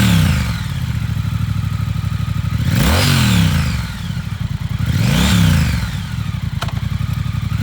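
2019 Triumph Speed Twin 1200's parallel-twin engine idling and blipped three times (at the start, about three seconds in, and about five seconds in), each rev rising and dropping back quickly to idle. A single short click near the end.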